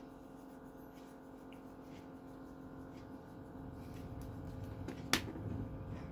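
Pencil lead scratching faintly on paper as a small circle is drawn, over a steady low hum. About five seconds in there is one sharp click, as the pencil is set down on the table.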